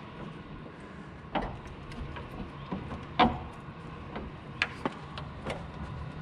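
A handful of short, sharp knocks and scuffs from someone moving through a doorway on a debris-strewn floor, the loudest about three seconds in, over a low steady hum.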